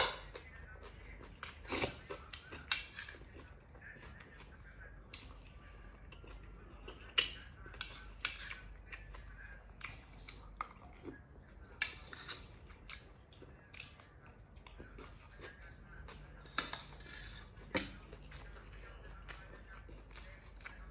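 Close-up eating sounds: irregular sharp clicks and clinks of utensils against a plate, with chewing, as a plate of nam tok moo and raw vegetables is eaten. About half a dozen louder clicks stand out among many small ones.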